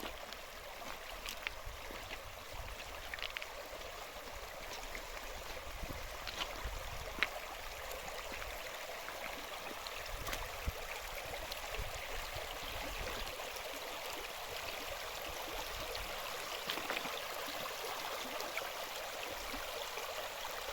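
Steady rush of flowing stream water, with faint scattered clicks over it.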